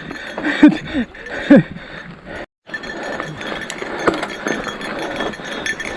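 Mountain bike clinking and rattling on a rough trail climb, with scattered small clicks. Two short vocal sounds come in the first couple of seconds, and the sound cuts out briefly near the middle.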